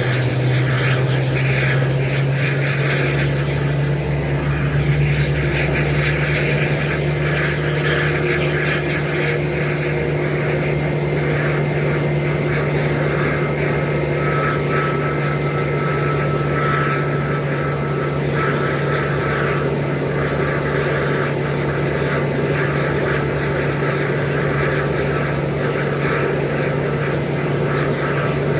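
Airbus A320-family airliner's jet engine running steadily at low power during engine start: a loud, even drone with a low hum underneath and thin, steady high-pitched tones.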